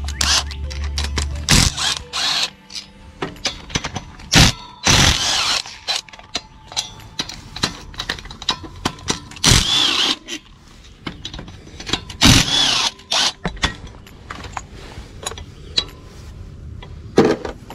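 A cordless drill spins out the valve-cover bolts on a V-twin overhead-valve mower engine in several short runs of under a second each. Sharp clicks and clatter from the bolts and the valve cover being handled fall between the runs.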